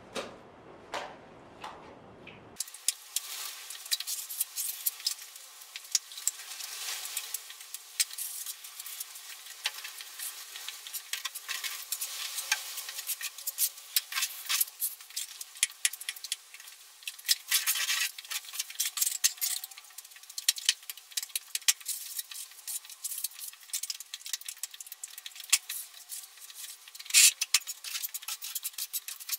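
Steel trowel scraping wet sand plaster onto a wall: a long run of irregular rough scrapes and light clicks as the plaster is spread on in repeated strokes.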